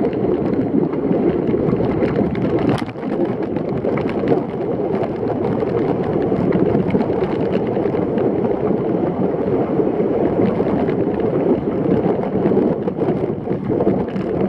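Wind rushing over the microphone and water rushing past the hulls of a Hobie Tiger catamaran sailing fast in strong wind: a loud, steady noise with a sharp click about three seconds in.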